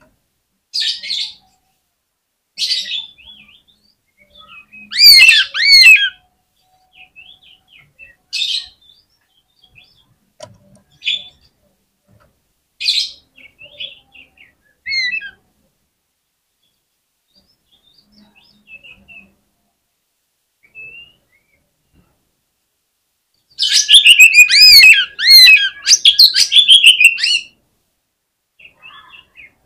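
Oriental magpie-robin (kacer) singing in its aggressive, fighting mode: short sharp calls every second or two, a burst of rapid sweeping notes about five seconds in, and a long loud run of varied rapid notes near the end.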